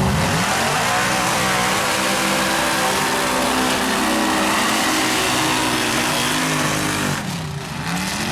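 Mud truck's V8 engine running hard at high revs, its pitch wavering under load; about seven seconds in the revs drop and then climb again in quick blips.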